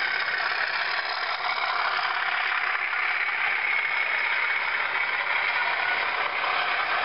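Model Class 37 diesel locomotive's digital sound decoder playing a steady English Electric V12 diesel engine note through its small speaker, with little bass. The model train's running noise on the track goes with it as the locomotive and its coaches pass.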